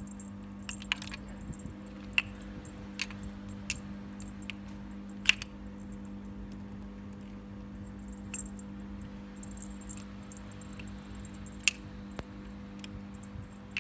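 Scattered sharp taps and clicks of a small ball and a kitten's paws hitting a hard floor as the kitten bats at the ball, at irregular intervals over a steady low hum.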